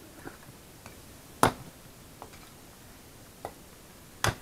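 Two sharp wooden snaps or knocks, about three seconds apart, with a few faint clicks between, as sticks and firewood are handled at a fire pit.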